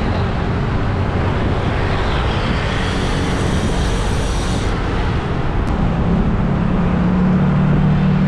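Steady road traffic noise with a hiss of wind and tyres. A high hiss cuts off about five seconds in, and a vehicle engine's low hum comes in about a second later.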